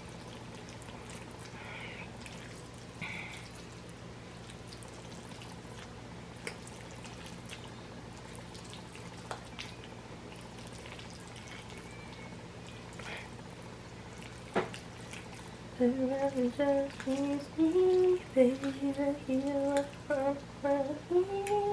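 Low steady hum of room tone with a few faint clicks, then for the last six seconds a woman hums a tune, holding notes and stepping from pitch to pitch.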